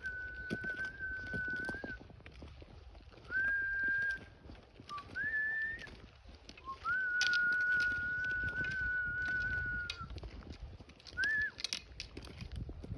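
A person whistling long, steady notes at nearly one pitch, with short pauses between them; the longest note is held for about three seconds.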